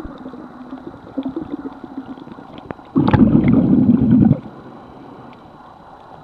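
Muffled underwater water noise picked up by a submerged camera, with faint scattered clicks. About three seconds in, a loud low rushing rumble of moving water starts suddenly, lasts about a second and a half, and cuts off.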